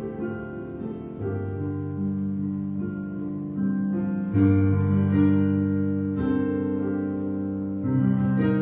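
Instrumental keyboard music: slow, held piano-like chords that change every second or two, with a louder chord struck about halfway through.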